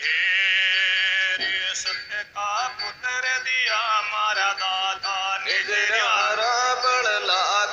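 Rajasthani folk narrative singing with musical accompaniment. A high, wavering melody line is held for about the first two seconds, then a man sings a bending melodic line over the accompaniment.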